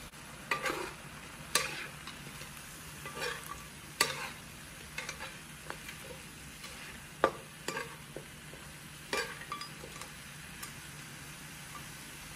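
Metal spatula scraping and clacking against a black wok as meat is stir-fried, with a steady sizzle of frying underneath. The spatula strikes come irregularly, about once a second.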